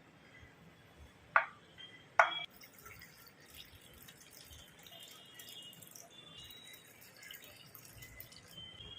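Two loud, sharp drops of water falling about a second apart, the second with a brief ringing plink, followed by faint light ticking.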